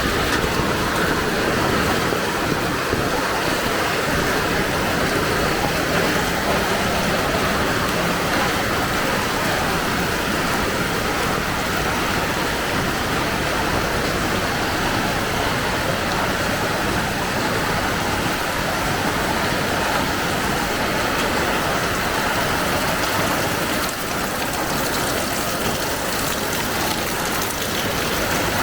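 Heavy rain falling, a steady dense hiss that holds even throughout.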